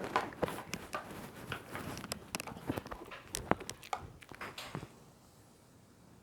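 A dog eating: irregular crunching and clicking of food and teeth, which stops about five seconds in.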